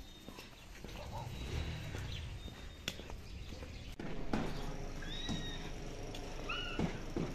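Outdoor background noise with a few light clicks, then short high chirping animal calls about five seconds in and again near seven seconds.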